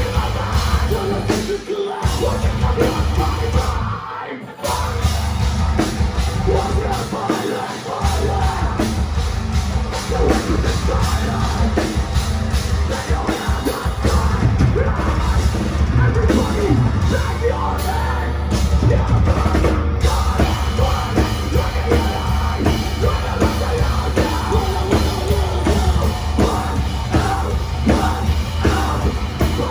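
Metalcore band playing live and loud: heavily distorted guitars, bass and a pounding drum kit, with screamed vocals. The band stops for a moment about four seconds in, and the low end drops out briefly just before eight seconds.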